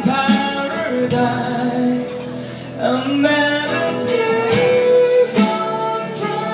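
Live acoustic pop performance: a singer with strummed acoustic guitar accompaniment, recorded on a phone.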